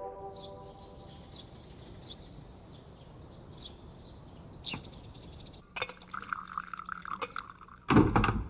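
Tea being poured from a teapot into a cup in the second half, a steady splashing pour. It ends in a short loud thud, with a faint high hiss earlier on.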